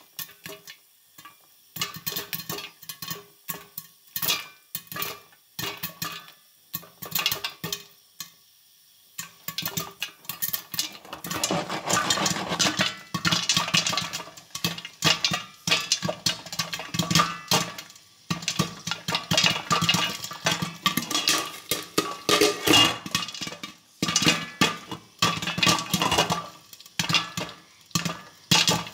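Popcorn kernels popping inside a lidded stainless-steel pot: a few scattered pops at first, then fast, dense popping from about eleven seconds in.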